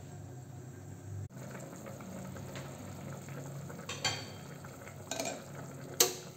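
Stainless steel soup pot on the stove with a steady low hum from the cooking. Its lid and a utensil clink against the pot a few times, and the loudest is a sharp metal knock near the end.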